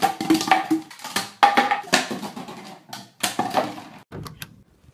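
Plastic soda bottles, some partly filled with water, being knocked over and clattering and rolling on a wooden floor, a string of hollow knocks with brief ringing. A few light clicks follow near the end.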